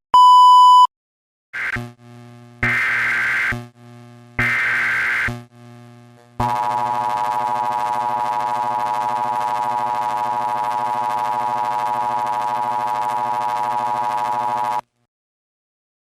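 Emergency Alert System tones: a short electronic beep, then three bursts of the digital SAME header, each about a second long, then the EAS attention signal, a steady two-tone alarm held for about eight seconds that cuts off suddenly.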